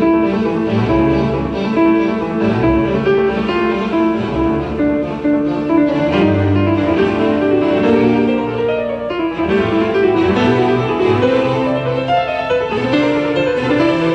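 Instrumental music played back through a tube amplifier and Infinity Primus P362 loudspeakers, picked up by a microphone in the room; it flows on as sustained, melodic notes.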